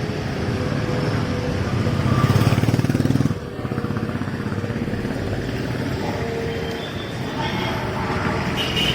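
Street traffic noise: vehicle and motorbike engines running, with some voices mixed in. It grows louder about two seconds in and drops off suddenly a little after three seconds.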